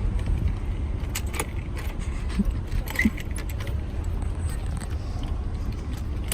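Scattered light metallic clicks and jingles, the sharpest about one and three seconds in, over a steady low rumble.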